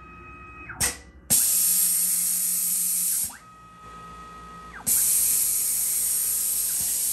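Super Prolight 1000 CNC mill doing an automatic tool change: a short puff about a second in, then two hisses of air from the spindle, each about two seconds long, as the tool holder is released into the rack and a new one taken. Between them a steady motor whine rises and falls in pitch as the axes move.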